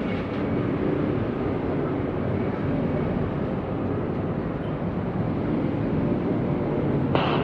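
Jet airliner engines making a steady, even rumble as the aircraft flies its approach.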